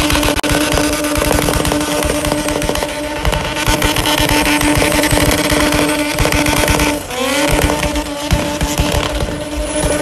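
Car engine held at high revs during a burnout, a steady high drone over a choppy exhaust. About seven seconds in the revs dip and climb straight back up.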